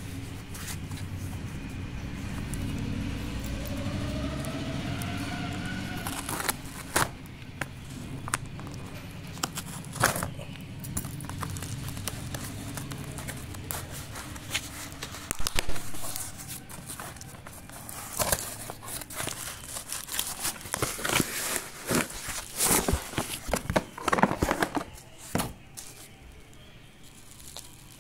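Product packaging being handled and opened by hand: a cardboard box shifted and opened with scattered clicks and taps, then plastic and bubble-wrap packaging crinkling, thickest past the middle. A low steady hum with a rising whine a few seconds in underlies the first half and stops about halfway.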